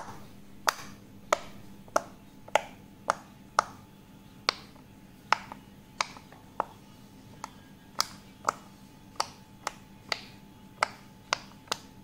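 Bubbles of a silicone pop it fidget toy being pushed through one at a time by a finger: sharp pops, about twenty in all, roughly one every half second to second.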